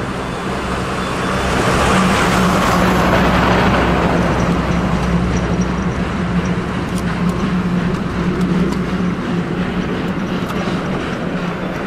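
SY-class 2-8-2 steam locomotive working hard with a train of wagons. Its exhaust is a steady, noisy sound over a low drone, swelling about two seconds in.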